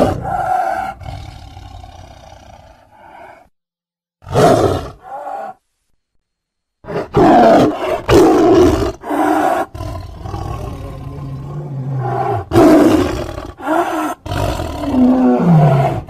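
Sound-effect roars and growls of the Primeval Gorgonopsid creature. A loud roar at the start trails off over about three seconds and a short roar follows about four seconds in, each separated by dead silence. From about seven seconds on comes an unbroken string of roars and growls, one near the end falling in pitch.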